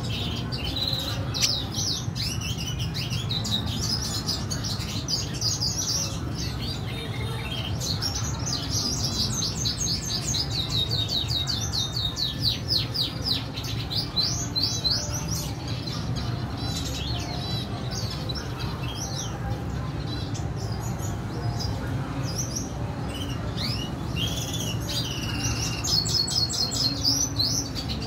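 Red siskins chirping and twittering, with fast runs of high trilled notes in the middle and again near the end, over a steady low hum.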